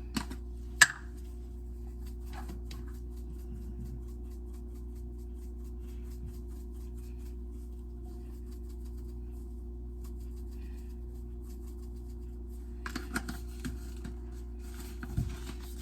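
A steady low hum runs throughout, with a single sharp click about a second in and a couple of seconds of light clicking and clattering near the end.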